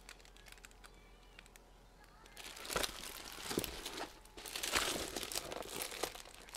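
Plastic cover film on a rolled diamond-painting canvas crinkling and crackling as the canvas is unrolled and handled, starting about two and a half seconds in with many small irregular crackles.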